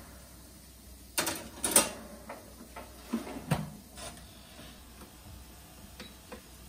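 Toaster oven being loaded and shut: a quick run of metal clunks and clatters about a second in, followed by scattered lighter knocks and clicks.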